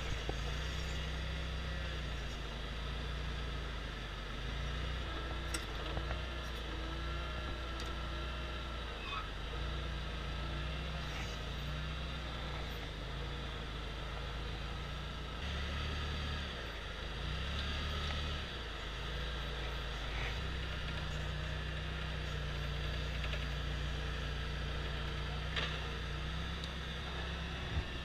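Forklift running while being driven, a steady low motor hum that shifts in pitch a few times as it speeds up and slows.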